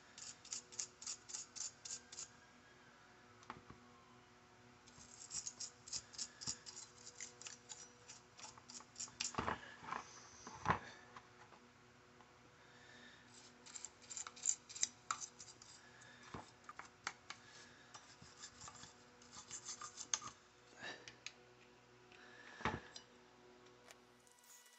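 Quick back-and-forth hand scraping strokes on a tool part, in runs of about five strokes a second with short pauses between, broken by a few sharp knocks.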